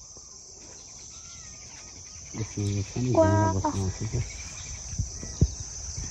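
Steady, high-pitched chorus of insects chirring in grassland, with a brief low voice-like sound near the middle and a few faint knocks toward the end.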